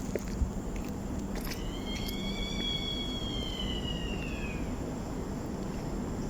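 A single long, high-pitched wailing cry, held for about three seconds and drooping in pitch at its end, over a steady background hiss. It is the eerie sound likened to someone calling for help. A sharp click comes just before it.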